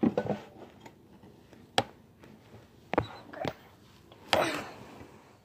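A few sharp knocks and clatters a second or so apart, then a louder rustling scuffle about four seconds in: handling noise as someone reaches up to grab a cat.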